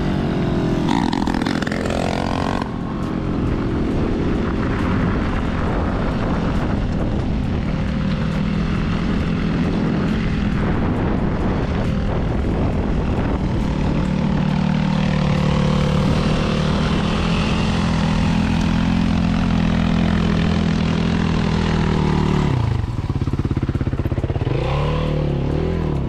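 Dirt bike engine running at a steady pitch, with wind rushing over the microphone as the bike moves. The engine note shifts and wavers near the end.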